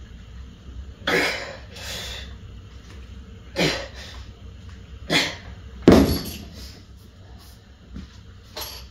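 Sharp, forceful exhalations with effort during a set of cable arm exercise, about six of them a second or so apart, the one about six seconds in the loudest.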